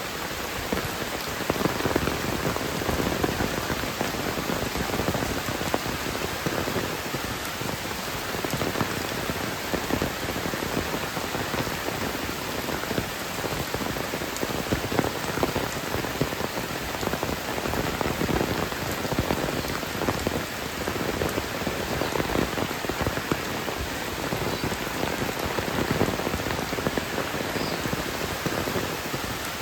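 Heavy rain falling steadily: a dense, unbroken hiss of countless drop impacts.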